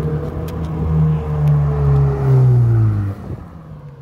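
Ferrari sports car engine passing close by, its note falling steadily in pitch and growing louder before it drops away sharply about three seconds in.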